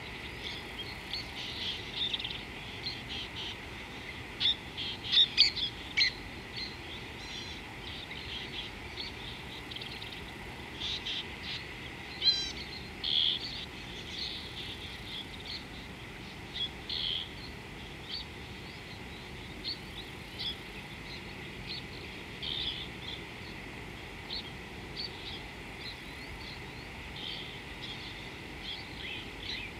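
Natural chorus of many short chirping animal calls, mostly birds, with a few rapid trills, over a steady high hum.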